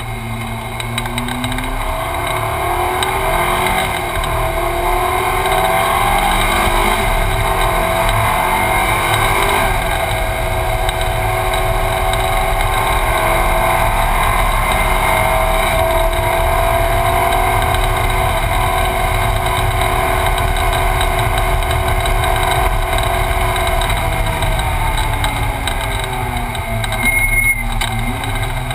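Ferrari 458 Challenge's mid-mounted V8 heard from inside the cockpit under hard driving. The engine note climbs in steps through gear changes in the first few seconds, then holds a long, slowly rising pull. Near the end the pitch falls as the car slows, with a brief loud burst.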